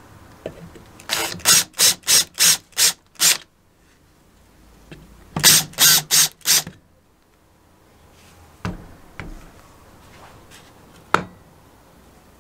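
Cordless drill run in short trigger bursts, about three a second, against a rusty steel chain hoist cover: a run of seven bursts, then four more after a pause. A few sharp metal knocks follow near the end.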